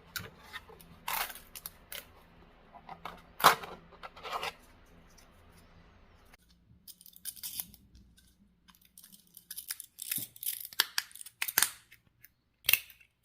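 Short raspy, crackling bursts of 3D-printed plastic parts rubbing and clicking against each other, as the corn toy is twisted to make its crunchy corn-cob sound. A low steady hum runs under the first half and stops about six seconds in.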